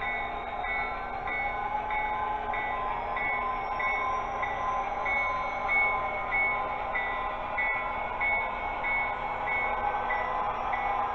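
Sound-equipped HO scale Athearn Erie Lackawanna SDP45 model diesel locomotive running on DC power, its onboard sound decoder playing a steady diesel engine sound with a bell ringing about one and a half times a second as the train rolls along.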